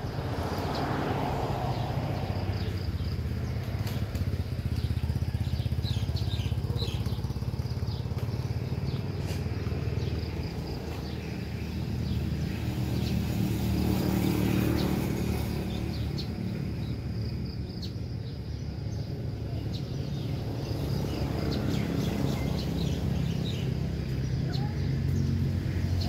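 Steady rumble of passing road vehicles, swelling about halfway through and again near the end, with short bird chirps scattered over it.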